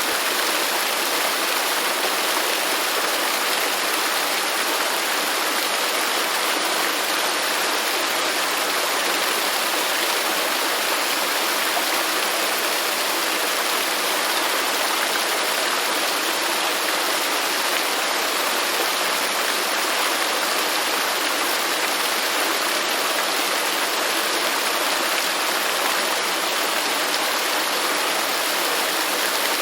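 Waterfall: water falling and rushing in a steady, even roar of white noise that never changes.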